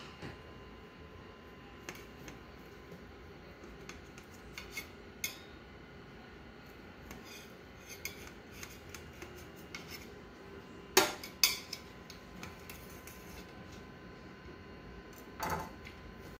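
Knife and metal cake server clinking and scraping against a metal plate as a cake is cut and a slice lifted out. Scattered light clicks, with the loudest clinks about two-thirds of the way through and again near the end.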